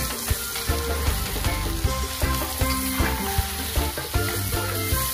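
Crab pieces with garlic, onion and chili sizzling in a hot steel wok while a metal spatula stirs and scrapes them, with repeated short knocks of the spatula against the pan. Background music runs underneath.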